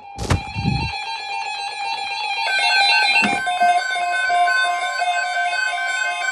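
Synthesized emergency-alert tones: a low thump, then a run of quickly changing electronic beeps that settle about halfway through into a steady two-pitch alarm tone. A second thump comes about three seconds in.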